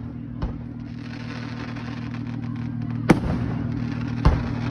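Fireworks exploding: a small bang about half a second in, a spell of crackling, then two loud bangs about three and four seconds in, over a steady low hum.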